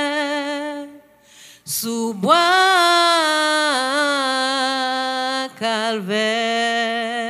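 A woman singing a slow hymn unaccompanied into a microphone, holding long notes, with a breath about two seconds in.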